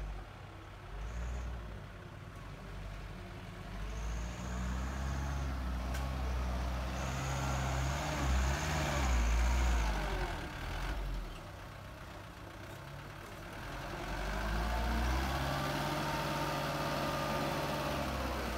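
Small diesel dump truck's engine running, revving up twice for a few seconds each time as it manoeuvres and then as the bed is raised to tip its load of soil, with a quieter spell in between. A thin high squeal sounds twice during the first stretch of revving.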